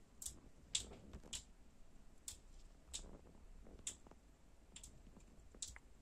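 Sun conure making faint, sharp clicking sounds, about nine irregularly spaced clicks.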